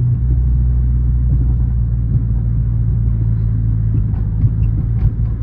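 Chrysler 300's V8 engine and exhaust droning steadily while driving, heard inside the closed cabin; its note steps down just after the start, then holds.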